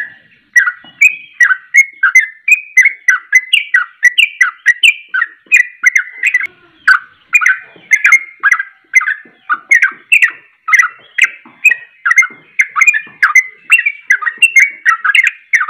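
A caged yellow-vented bulbul (trucuk) singing a loud, continuous run of short, rapid notes, about three a second. This is the fast run of song that keepers call ropelan.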